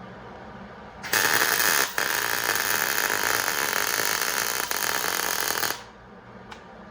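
Miller 140 MIG welder laying beads: a loud, steady arc sizzle starts about a second in, breaks off briefly, picks up again and stops sharply near six seconds. A low steady hum underneath.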